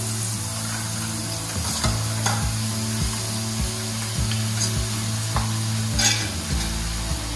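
Gram-flour batter drops sizzling as they fall into hot oil to fry as boondi. From a couple of seconds in, a steel ladle scrapes and knocks against the perforated steel vessel about twice a second as it presses the batter through. A steady low hum runs underneath.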